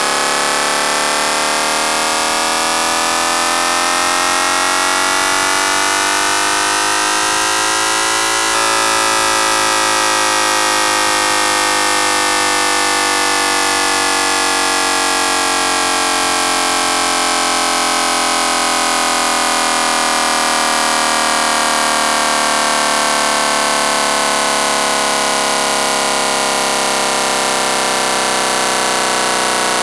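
Synthesized imitation of a Toyota 2JZ straight-six engine, played from a phone sound-sequencer app: the engine note climbs steadily in pitch for about eight seconds, as in a dyno pull, then winds slowly and evenly back down.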